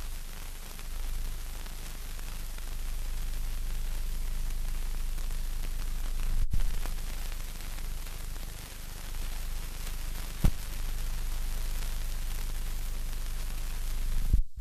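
Steady hiss with a low hum underneath, the surface noise of an old film soundtrack with no recorded sound, broken by two sharp clicks, one about halfway through and one about two-thirds through.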